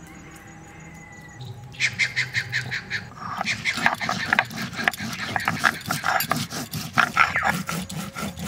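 Dry coriander and cumin seeds being crushed on a wet stone grinding slab (shil-nora) with a stone roller. It begins about two seconds in as a quick run of sharp crackling clicks, about six or seven a second, then becomes a denser, uneven grinding crackle as the seeds break up.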